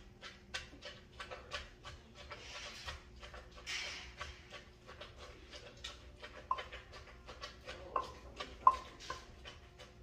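Wooden pestle pounding papaya salad in a clay mortar: a steady run of knocks, about two to three a second, with a sharper, louder clack near the end.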